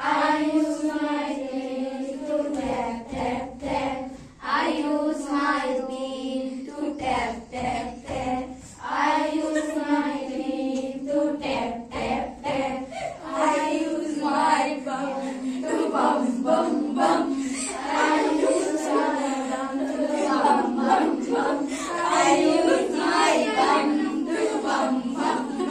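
Group of girls singing an English action rhyme together, their voices at steady sung pitches, punctuated by frequent hand claps.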